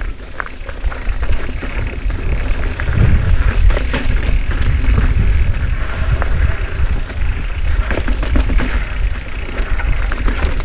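Mountain bike riding a rough dirt trail, with wind rushing over the microphone and the frame and tyres clattering with many quick knocks and rattles. The rumble grows louder about three seconds in.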